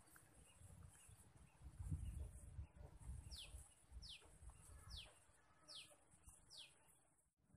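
A bird calling, a series of five short whistled notes, each falling in pitch, evenly spaced a little under a second apart, over a faint low rumble.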